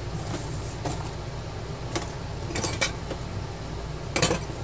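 Small metal hand tools clinking and tapping: a few separate sharp clicks, then a louder cluster of clinks near the end, over a steady low hum.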